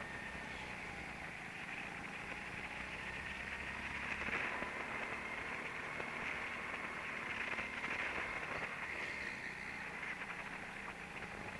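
A go-kart's motor heard from the kart while lapping, a steady muffled drone whose pitch drifts gently up and down through the corners, under a hiss of rushing air and rattle.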